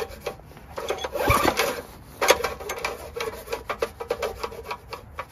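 Briggs & Stratton 6 hp Intek engine being turned over slowly by hand on its recoil starter rope, the rope and starter mechanism giving runs of rapid rattling clicks in several bursts. The engine is not running; its crankshaft has just been freed from rust with penetrating oil and turns smoothly with a little compression.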